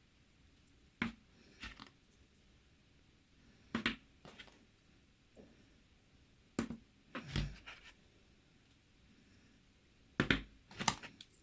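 Slime being handled, giving short sticky squelches and pops in rough pairs every few seconds, with quiet between.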